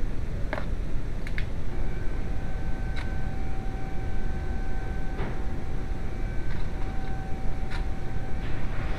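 VW 2.0L AZG four-cylinder engine running with a steady low rumble. A faint steady whine comes in about two seconds in, and a few sharp clicks sound over it.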